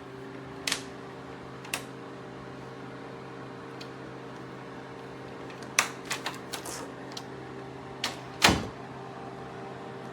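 Scattered sharp clicks and taps, a quick cluster of them around six seconds in and the loudest about eight and a half seconds in, over a steady electrical hum.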